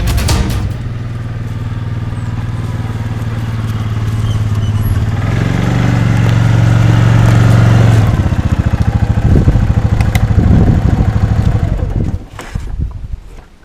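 An engine running with a steady low drone that grows louder over the first eight seconds, then wavers and fades about twelve seconds in.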